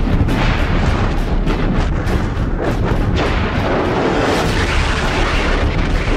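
Artillery shells exploding one after another, sharp blasts over a continuous low rumble, with the heaviest blasts near the start and around two and a half to three seconds in.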